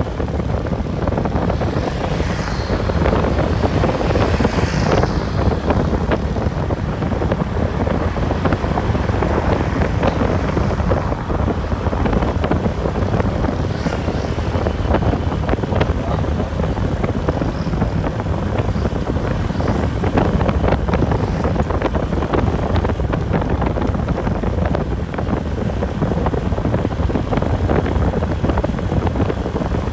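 Bus on the move: a steady low drone of engine and road noise, with continual small rattles and wind buffeting the microphone.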